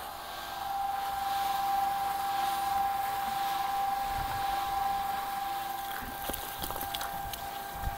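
Plastering machine running with a steady whine, with a few light knocks and clicks near the end.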